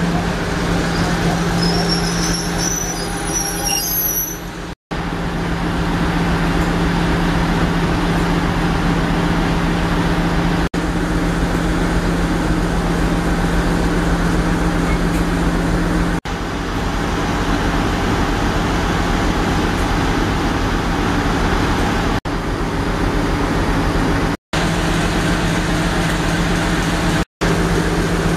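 Class 56 diesel locomotive, Ruston-Paxman 16-cylinder engine, idling with a steady low drone. Thin high wheel or brake squeals sound over it in the first few seconds. The drone breaks off abruptly for a moment several times.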